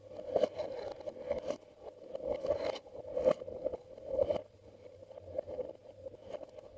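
Glossy slime being worked by hand, giving irregular sticky clicks and squelches that come in swells about once a second.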